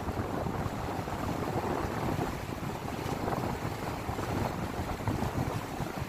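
Wind buffeting the microphone over the steady wash of surf breaking on coastal rocks.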